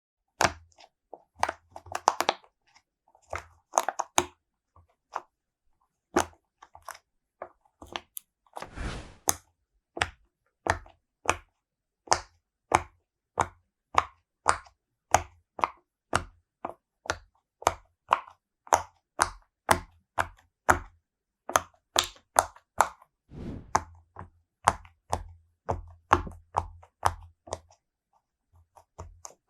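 Silicone bubbles of an apple-shaped Pop It fidget toy being pressed in one after another, each giving a short sharp pop, about one to two a second. A short rubbing noise, like fingers sliding over the silicone, comes about nine seconds in and again later on.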